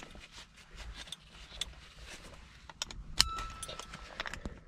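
Metal latch plates of a Tanaka four-point camlock racing harness clinking and clicking into its round quick-release buckle as it is done back up. There are scattered clicks, with a cluster about three seconds in that includes one sharp click with a brief metallic ring.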